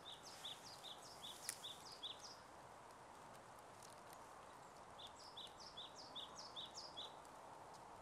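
A small bird singing: quick runs of short chirps that alternate between a higher and a lower note, about seven repeats in each run, once at the start and again about five seconds in, over faint steady hiss.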